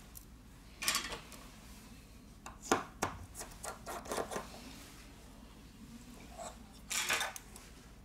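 Small metal hand tools, tweezers and a precision screwdriver, clicking and scraping against a smartphone's metal frame and internal brackets during disassembly. It comes as scattered short taps: one about a second in, a cluster around three to four seconds, and another near the end.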